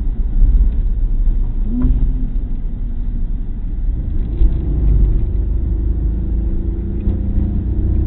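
Opel Corsa engine and road noise heard from inside the cabin at speed, with a heavy low rumble throughout. The engine note climbs steadily over the last few seconds as the car accelerates.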